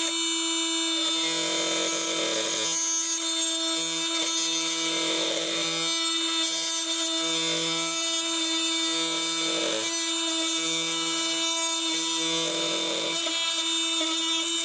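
Flex 24-volt oscillating multi-tool running with a steady high-pitched buzz, its blade cutting into wood. The load swells and eases every second or two as the blade is worked through the cut.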